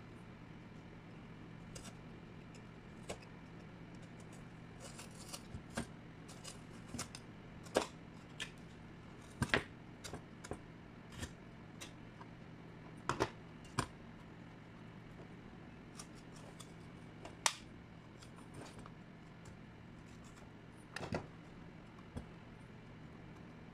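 Irregular sharp clicks and snips from a hand tool and small wiring parts being worked at a stage light's lamp socket, about a dozen spread across the stretch, over a steady low hum.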